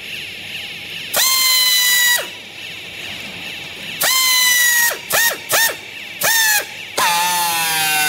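Pneumatic strapping tool's air motor whirring in about six bursts, two of them about a second long and the rest short blips, each sliding down in pitch as it stops. It is tensioning plastic strap around a bale of rags.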